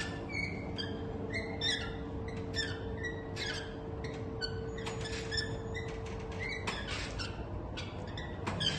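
Small birds chirping, short high calls with a quick falling pitch repeating several times a second, over a steady faint hum.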